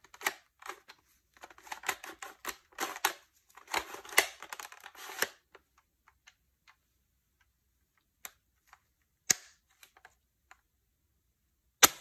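Handling noise from a plastic Bug-A-Salt salt gun turned over in gloved hands: a dense run of crackly rustles and clicks for about five seconds, then a few scattered clicks and one sharp click near the end.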